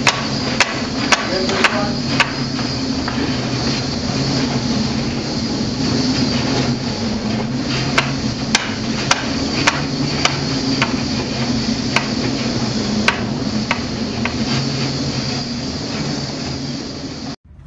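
Steady low drone of a ship's engine heard inside the wheelhouse in heavy seas, overlaid with irregular sharp knocks and rattles every half second to few seconds. It cuts off suddenly near the end.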